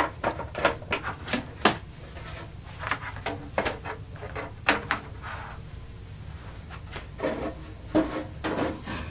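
Handling noise on a workbench: scattered clicks, knocks and rubbing as a power cord and cables are moved around the opened monitor chassis, with the most knocks in the first couple of seconds and again near the end.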